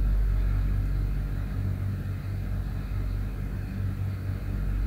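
Corn kebabs deep-frying in a pan of hot oil, bubbling and sizzling, over a steady low hum.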